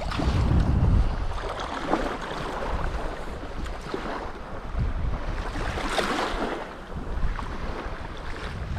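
Wind on the microphone over shallow estuary water lapping at the shoreline, with a couple of brief louder rushes of water.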